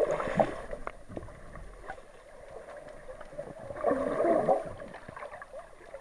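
Muffled water sloshing and gurgling against an action camera's waterproof housing, swelling at the start and again about four seconds in, with a few small clicks.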